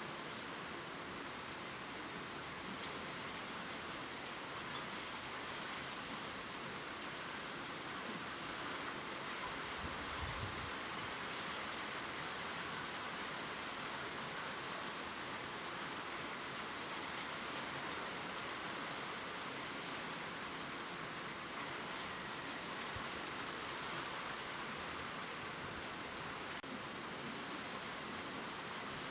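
Steady gentle rain pattering on leaves, a constant hiss with scattered small drop ticks, and a brief low thump about ten seconds in.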